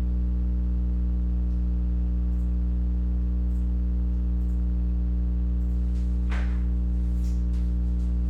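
Steady electrical mains hum with a stack of evenly spaced overtones, and a faint brief rustle about six seconds in.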